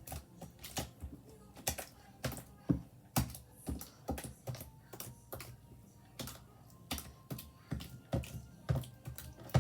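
Sticky, jiggly clear-glue slime being squished and stretched by hand, making irregular clicks and pops, two or three each second.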